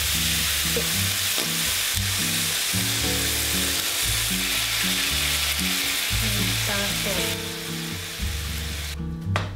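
Diced eggplant and ground chicken sizzling as they fry in sesame oil in a frying pan, a steady hiss that cuts off near the end.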